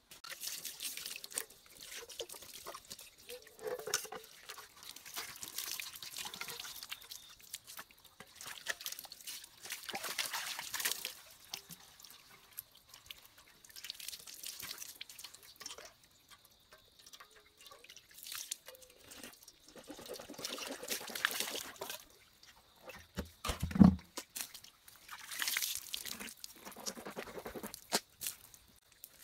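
Water splashing and sloshing in irregular bursts as a steel pot is rinsed by hand, with one loud thump about three-quarters of the way through.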